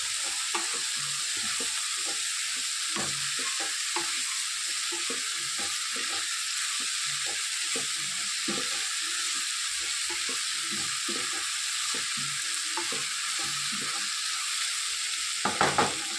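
Chopped spring onions, tomato and green chillies sizzling in oil in a nonstick kadhai, with a steady hiss, while a spatula scrapes and stirs them in irregular strokes. The vegetables are being sautéed as the masala base. A few louder strokes come near the end.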